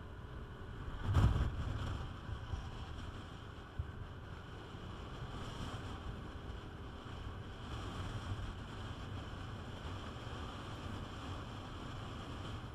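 Steady wind rushing over the microphone and a low road rumble from a Peugeot Metropolis 400 scooter riding at speed. About a second in comes a short, louder rush as an oncoming lorry passes close by.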